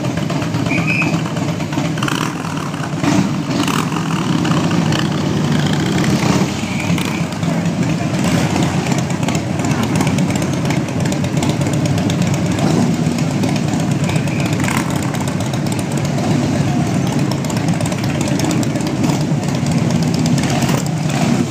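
A line of Harley-Davidson V-twin motorcycles riding slowly past at low revs, their engines giving a steady, continuous low rumble as one bike follows another.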